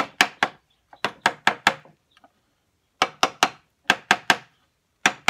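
Wooden stick knocking the lid down onto a small metal can of wood stain, seating it shut: several short runs of three or four sharp knocks, about five a second, with brief pauses between runs.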